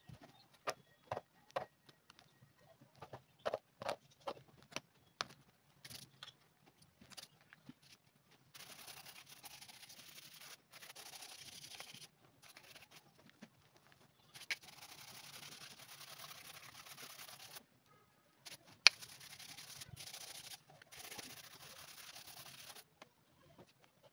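Hand tools picking and scraping crumbled old rubber sole off a leather sandal: irregular sharp clicks and taps for the first several seconds, then long stretches of steady scraping broken by short pauses, with one loud click later on.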